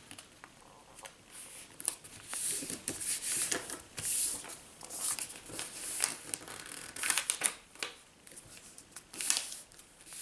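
A sheet of plain white printer paper being folded and creased by hand: irregular rustling and sliding strokes of paper, a few sharper swipes as the folds are pressed flat.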